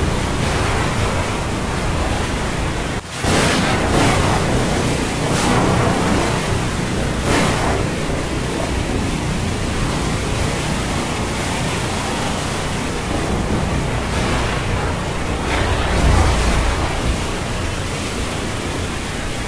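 Stormy sea: a steady rush of wind and breaking waves, with a short break about three seconds in and a deeper low rumble near the end.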